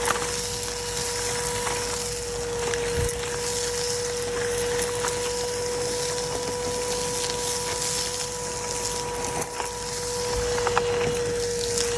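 Numatic Bertie cylinder vacuum cleaner running steadily, with a constant motor whine and rushing air at the nozzle. Scattered small clicks of debris are sucked up.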